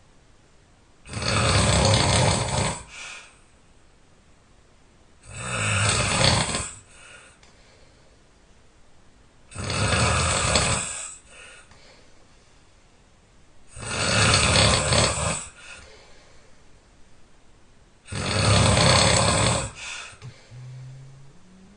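A person snoring loudly: five heavy snores at a steady rhythm, one about every four seconds, each lasting about a second and a half, with quiet breathing between. Near the end there is a short, low, rising sound.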